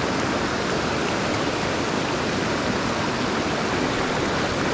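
Creek water rushing steadily over rocks in a shallow riffle, an even wash of noise.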